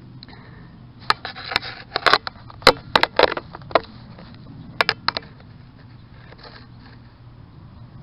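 Close handling noise from a gloved hand and a hand digging tool: a burst of sharp crackles and knocks from about a second in to about five seconds in, then only faint rustling.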